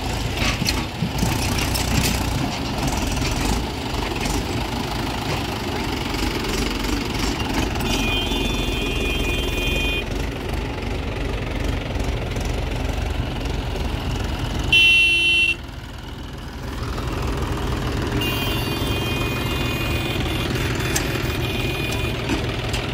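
Tractor diesel engines running under load through mud, a steady low rumble. A high steady tone comes and goes twice. About fifteen seconds in, a short, loud horn blast.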